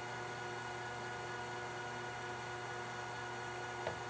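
Metal lathe running steadily during a facing cut on the end of a part, a constant hum with several steady tones. A single short click near the end.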